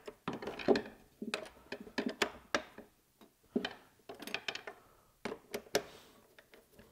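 Woodpeckers box clamp being adjusted with a hex driver: an irregular string of small clicks, taps and scrapes as the driver works the fixed wedge's screw and the wedge is shifted.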